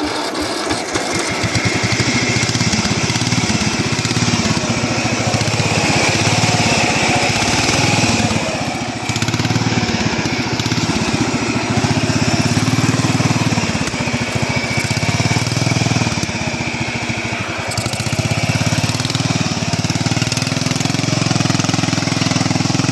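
Small gasoline engine running steadily, with a rapid uneven pulse in its low note.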